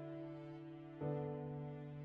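Background music: slow, held chords, changing to a new chord about a second in.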